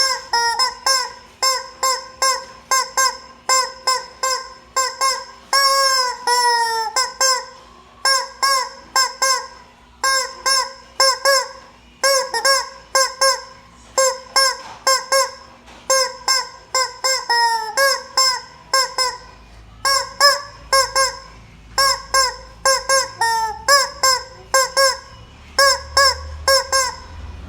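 A hen calling loudly and without let-up in rapid runs of short, nasal squawks, several a second, broken by a few longer falling calls about six and seventeen seconds in.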